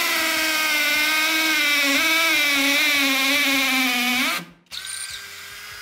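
Hammer drill boring into concrete with a 10 mm Zest Z-HT7P spear-point multi-purpose bit, grinding and hammering at once: a loud steady whine whose pitch sags slightly as the bit sinks in. It stops abruptly about four seconds in, leaving a much fainter steady tone.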